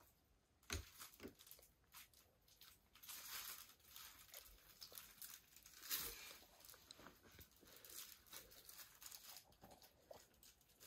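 Faint scratching and paper crinkling in scattered bursts: a Siberian kitten's claws and fur on a scratching post and a toddler handling a paper chart, with a soft knock about a second in and a sharper click about six seconds in.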